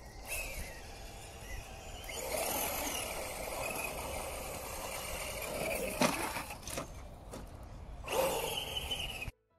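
Electric motor and gearbox of an MST CMX Jimny RC crawler whining, the pitch rising and falling with the throttle, with tyres crunching over dirt and dry leaves and a sharp knock about six seconds in. The sound cuts off abruptly near the end.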